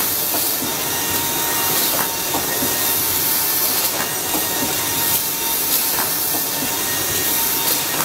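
Automatic UV screen printing machine running: a steady high hiss with a faint constant tone, and scattered light clicks from its moving parts.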